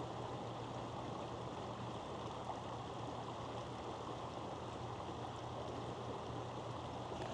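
Steady rush of a shallow creek running over rocks, with a low steady hum underneath.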